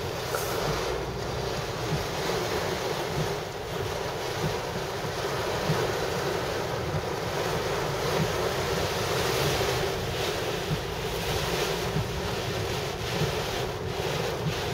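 Heavy rain pounding on a car's windshield and roof, heard from inside the cabin as a steady, dense hiss with wind.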